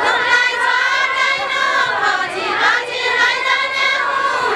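A group of women sing a Deuda, the Far-western Nepali folk song, together in chorus and without instruments.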